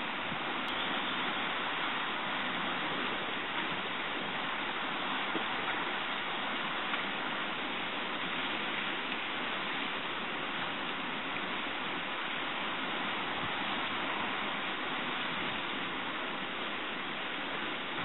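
Steady, even hiss with no calls or other distinct sounds, broken only by a faint click about a second in.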